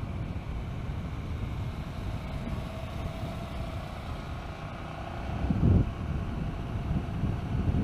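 Hyosung GT650R V-twin running at cruising speed, its engine note faint under heavy wind noise on the microphone, with a stronger gust of wind buffeting about five and a half seconds in.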